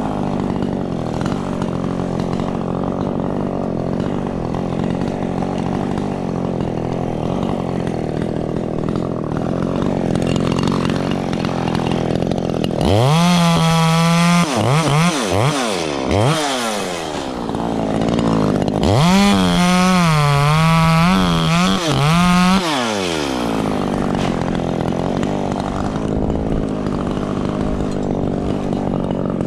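Echo CS-3510 two-stroke chainsaw idling, then revved to full throttle a little before halfway and blipped a few times. It is held at high revs again for about three seconds around two-thirds of the way through, its pitch wavering, before dropping back to idle.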